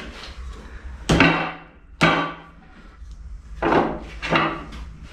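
About four hammer blows on a wooden block held against a tight-fitting steel frame stretcher between the frames of a 7.25-inch gauge locomotive, knocking it loose so it can be shifted. The first two, a second apart, are the loudest and leave a short metallic ring in the frames.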